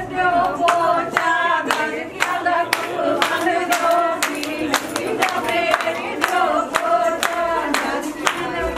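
A group of voices singing, over a steady beat of sharp strokes about two to three a second.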